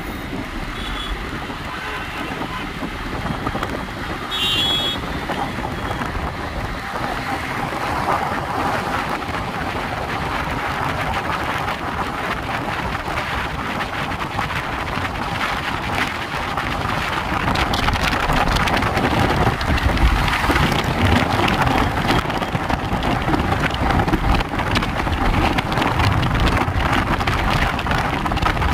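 Road and wind noise heard from inside a car moving at speed: a steady rushing hiss that grows louder from about halfway through.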